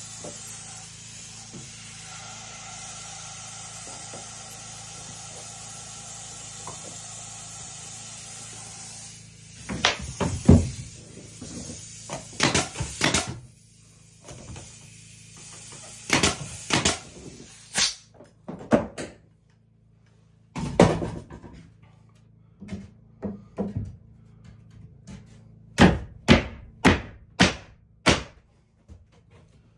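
Soft background music for the first several seconds, then a series of sharp knocks on wood in clusters of two to five as boards are worked overhead, ending in a run of about five quick knocks near the end.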